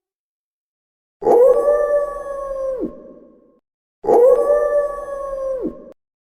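Wolf howling: two howls, each held at a steady pitch and then dropping sharply at the end, the second cut off suddenly.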